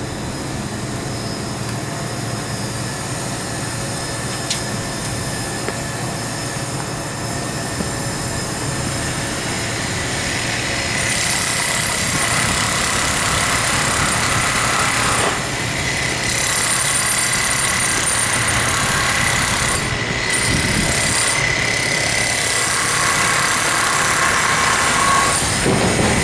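Mobile crane's diesel engine and hydraulics running steadily under load as it hoists and swings a heavy steel section, growing louder about ten seconds in, with a steady high whine over the engine.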